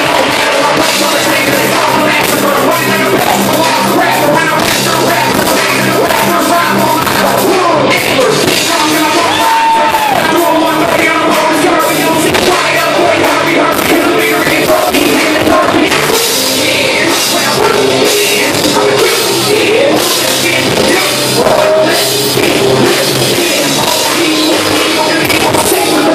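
Live rock band playing loud: electric guitar and drum kit with vocalists on microphones over the top.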